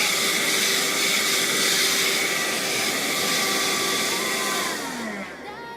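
Wet/dry car vacuum cleaner running at full suction with a steady motor whine, then switched off: about four and a half seconds in, the whine falls in pitch as the motor spins down.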